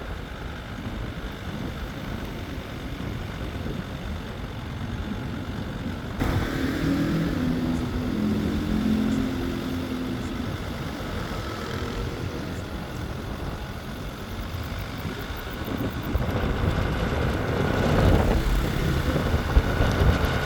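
A 4x4 vehicle driving, its engine and tyres making a steady rumble. The sound changes abruptly about six seconds in, and again near the end.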